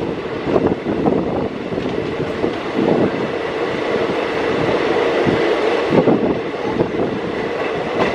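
Train running over the rails: a steady rumble with irregular clattering knocks of wheels over rail joints and points.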